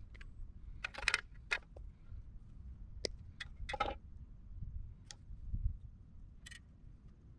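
Irregular sharp clicks and snips of wire cutters and wire being cut, stripped and handled at a light fixture's socket base, with a low rumble underneath.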